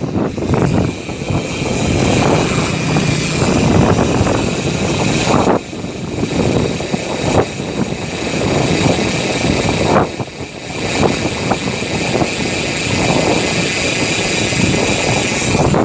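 Maxzone Stroke 1.0 three-pawl cassette hub buzzing as the bicycle freewheels, mixed with heavy wind and road noise on the microphone. The sound briefly drops twice near the middle.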